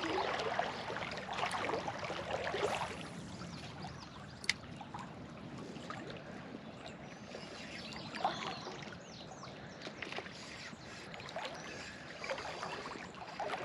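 Shallow Ozark creek water running and trickling steadily, with a few brief sharp sounds, the clearest about four and a half seconds in.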